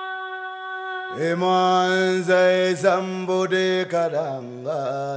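Sung chant as a soundtrack: a single voice holds one high note, then about a second in a low steady drone enters beneath a wavering sung melody. It fades near the end.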